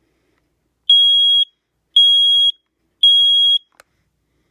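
Smoke alarm sounding three high-pitched beeps about a second apart, the three-beep temporal pattern of a smoke alarm's evacuation signal.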